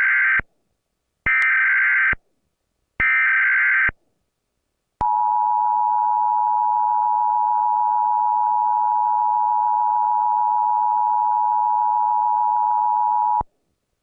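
Emergency Alert System alert tones: the end of the first of three SAME header data bursts, then two more, each under a second long and about half a second apart. About a second after the third, the two-tone EAS attention signal starts, a steady dual tone just under 1 kHz held for about eight seconds, then cuts off.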